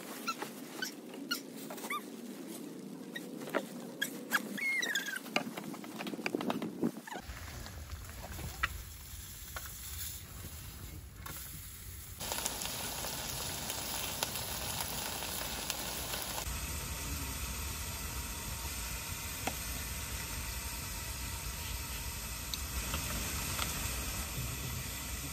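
Rustling, clicks and small squeaks of gear being handled, then a steady hiss of rain pattering, with meat sizzling on a camp stove.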